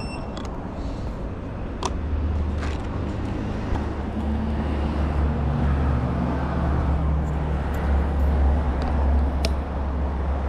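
Steady low outdoor rumble picked up by the drone's onboard camera mic, with a few sharp handling clicks, about two seconds in and again near the end, as the drone is picked up and carried.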